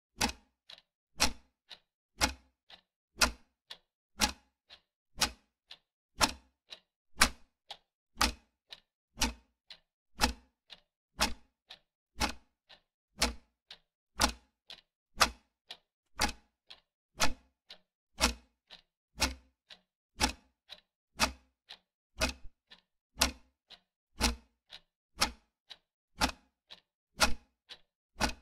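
Clock-ticking sound effect marking a countdown timer: an even tick-tock, a louder tick once a second alternating with a softer tock.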